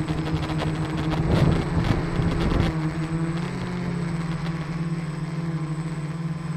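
Steady motor and propeller hum of the small radio-controlled aircraft carrying the camera, heard from on board. A burst of rushing noise comes between about one and three seconds in, and the hum shifts in pitch shortly after.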